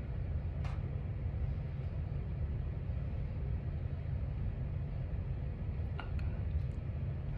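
Steady low rumble of room air handling, with a couple of faint clicks.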